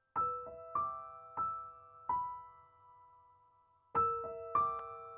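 Background music of slow piano notes, struck one at a time and left ringing: four notes, a pause of almost two seconds, then two more.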